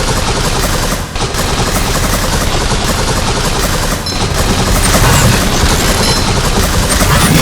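Loud, dense rapid crackling noise, like a fast clatter of many small snaps, from a synthetic sound effect. It drops out briefly about a second in and about four seconds in, and grows a little louder from about five seconds.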